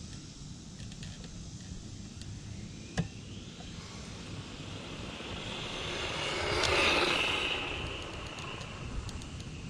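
Hosim Q903 brushless 1/16-scale RC truck on a full-throttle speed run: its high-pitched motor whine grows louder, peaks about seven seconds in as it passes, then fades away. A single sharp click sounds about three seconds in.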